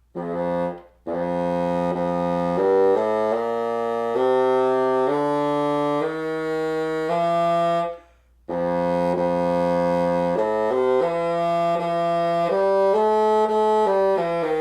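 Bassoon played to test the pitch of a reed that plays flat, just after its first wire was moved to shorten the vibrating length. A short note comes first, then a run of held notes stepping from pitch to pitch, a pause for breath about eight seconds in, then more notes.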